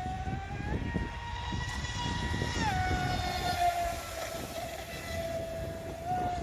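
Brushless electric motor of an Oxidean Dominator RC speed boat whining on a high-speed run, its pitch stepping up about a second in and dropping just before three seconds, over a rough rush of water and wind.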